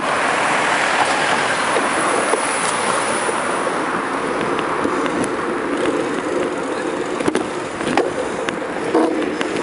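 Wind rushing over the microphone and tyres rolling on the road as a bicycle rides along a street, with a few sharp knocks and rattles in the later seconds as it goes over bumps.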